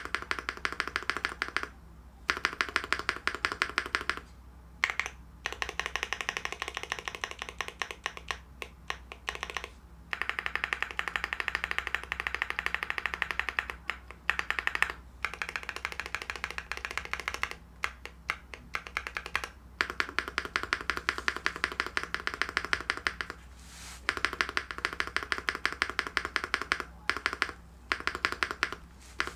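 Fast typing on a stock Rainy75 Pro mechanical keyboard with JWK Snow Ink linear switches: a rapid stream of key clacks in runs, broken by short pauses every few seconds.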